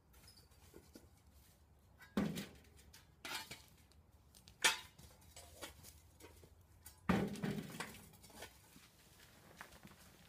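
Hot stones clanking as they are loaded from a fire into a metal wheelbarrow: four sharp clanks spaced a second or more apart. The last is the heaviest and is followed by a short rattle of stones settling.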